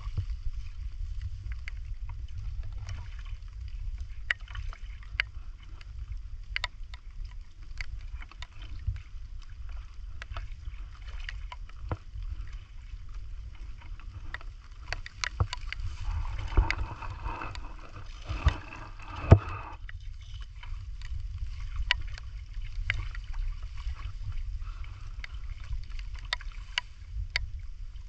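Splashing and sloshing in shallow muddy water as hands grope in it during wading, with scattered small splashes and clicks over a steady low rumble. About two-thirds of the way through comes a busier stretch of splashing with a few sharp knocks, the loudest of them near the end of it.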